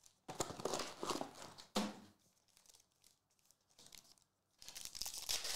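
Foil trading-card pack wrapper crinkling and tearing as it is opened. The first bout of crackling lasts about a second and a half and ends with a sharp rip; a second bout starts near the end.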